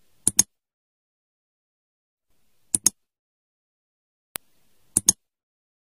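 Mouse-click sound effects of on-screen buttons being pressed: three quick double clicks about two and a half seconds apart, with a single sharp tick just before the last, and dead silence in between.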